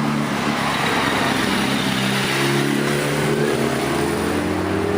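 A motor vehicle's engine running close by, its pitch rising steadily through the second half, over a steady rushing noise.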